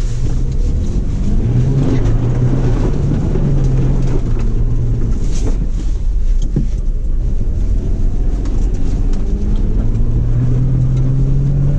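A Toyota off-road truck's engine heard from inside the cab while driving across bumpy, icy grass. The engine note rises and falls with the throttle over low rumble, with an occasional knock from the body.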